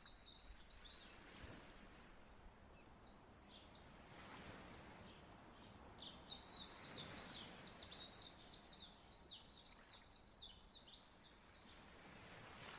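Faint bird song: fast runs of high, sharply repeated notes, a short run about three seconds in and a long one from about six seconds to eleven. Beneath it a faint hiss with soft swells of wave noise.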